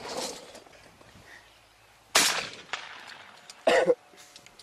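A shotgun shot about two seconds in, a sharp report that dies away over half a second, after a fainter report at the very start. Near the end comes a brief loud sound of about a quarter second.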